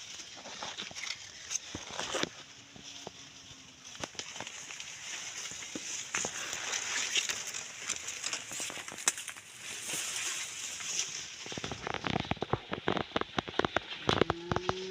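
Outdoor rustling and crackling with many small irregular clicks over a steady hiss, and a short low call near the end.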